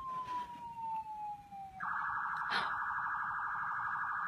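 Electronic police car siren: a wail tone falling slowly in pitch, then about two seconds in switching to a rapid warbling yelp that carries on steadily.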